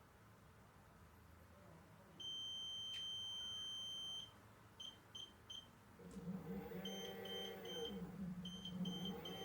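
Electric one-wheel's controller beeping during calibration: one long high beep about two seconds in, then three short beeps. From about six seconds in, groups of three short beeps repeat over a wavering electric-motor hum.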